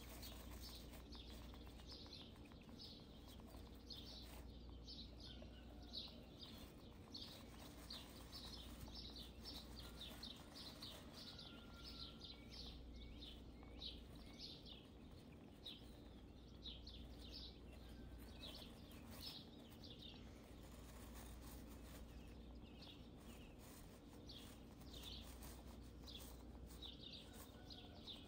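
Faint, rapid high chirping, a few short chirps a second, like a small bird, over a low steady hum.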